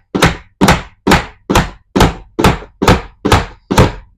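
Hammer driving a finishing nail into wooden trim: about nine steady, evenly spaced strikes, a little over two a second.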